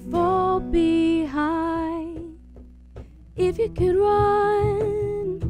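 A woman singing live with acoustic and electric guitar accompaniment. A sung phrase, a short pause about two and a half seconds in, then a long held note over strummed guitar.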